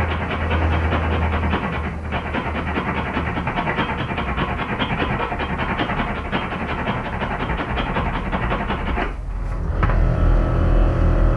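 Hand metal file rasping back and forth on a wheel-arch stud, filing it down where it rubs the tire. It pauses briefly about two seconds in and stops about nine seconds in, when background music starts.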